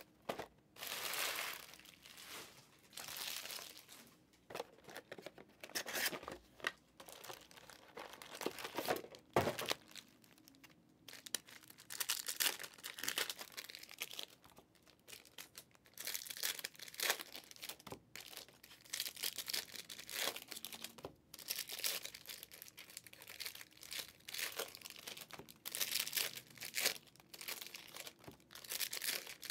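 Plastic wrapping crinkling and tearing in irregular bursts of a second or two, as sealed trading-card boxes are unwrapped and their packs handled, with small clicks in between.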